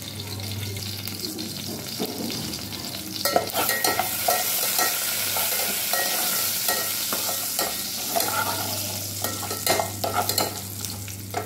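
Tempering of mustard seeds, dal and dried red chillies sizzling and crackling in hot oil in an aluminium pot, with a metal spatula stirring and scraping the pot. The sizzle grows loud about three seconds in and eases near the end.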